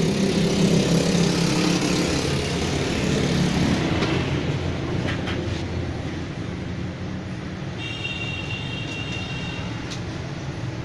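Steady background noise with a low hum, easing off after about four seconds. A few light clicks and a brief high-pitched tone about eight seconds in.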